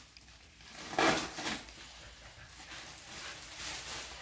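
Clear plastic wrapping of a vacuum-packed cushion crinkling as it is pulled open by hand, with a dog's short whine about a second in.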